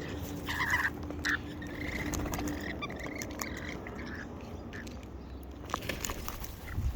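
Wild cockatoos feeding at close range: short scratchy squawks and chattering calls, with scattered sharp clicks and taps of beaks at the food.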